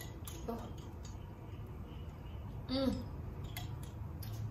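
Faint clicks of a glass bottle being handled, then a short falling 'mm' of appreciation from a woman tasting her drink, about three seconds in. A low steady hum sits underneath.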